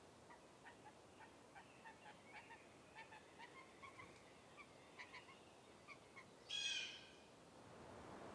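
Faint bird calls in the forest: a string of short, thin chirps, two or three a second, then one louder, harsher call about six and a half seconds in.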